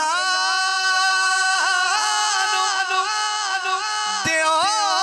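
A man singing devotional verse unaccompanied into a handheld microphone, drawing out one long note with small ornamental turns. About four seconds in, a new phrase begins with an upward swoop.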